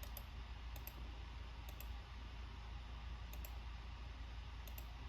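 Faint clicks, usually two in quick succession, repeating at uneven gaps of about a second or more, over a low steady hum.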